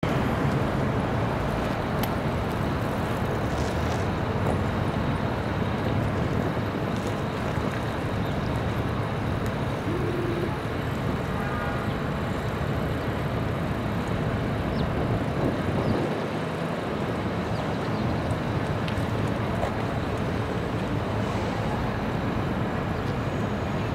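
Steady city street traffic noise, with a transit bus pulling up and standing close by, its diesel engine running.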